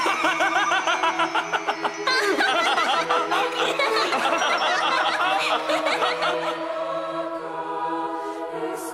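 Anime characters laughing together, rapid pulsing laughs swelling into several overlapping voices, over soft sustained background music. The laughter stops about six and a half seconds in, leaving the music alone.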